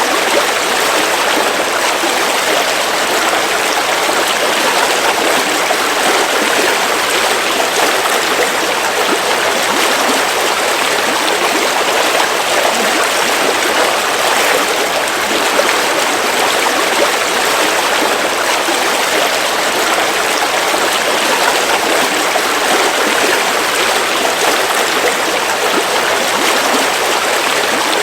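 River water flowing over rocks: a steady, even rush of running water with a gurgling, trickling texture.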